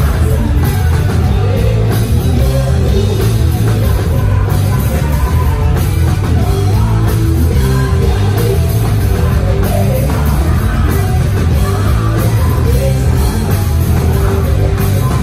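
Rock band playing live and loud: distorted electric guitars, bass and drum kit, with a singer over them.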